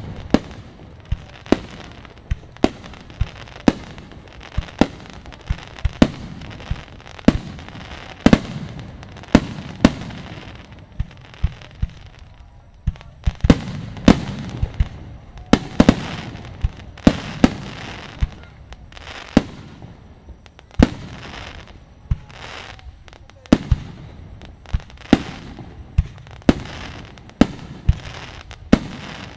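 Aerial fireworks display in a continuous barrage: sharp shell bursts about one or two a second, each followed by a rolling low rumble.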